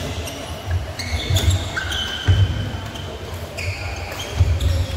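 Badminton rally: racket strikes on the shuttlecock, with shoes squeaking on the court floor and footsteps thudding.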